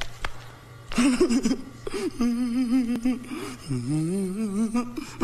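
A man's drawn-out, wavering wail without words, starting about a second in and going on in three long cries.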